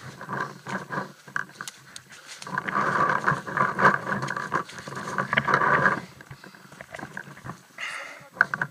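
Footsteps crunching and rustling through dry leaf litter on the forest floor, with clothing and gear brushing. It is busiest and loudest in the middle, then settles to lighter rustling.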